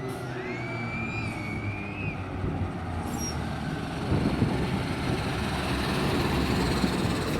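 Fire engine driving by on an emergency run: a siren tone rises and holds for about two seconds, then dies away. The truck's engine rumble and road noise grow louder about four seconds in.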